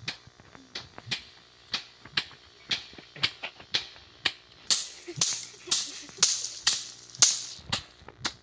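Dried soybean plants being beaten with a stick to thresh out the beans, in sharp strikes about two a second. For a few seconds in the second half the strikes come with louder crackling and rustling of the dry pods and stalks.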